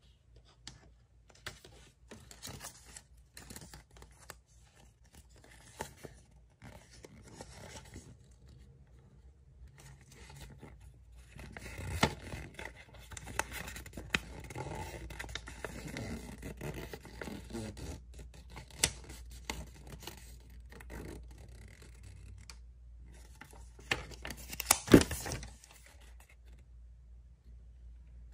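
Fingers handling and unfolding a glossy paper collector's guide leaflet: scattered rustles and scrapes, busiest through the middle, with a few sharp clicks and one louder click a few seconds before the end.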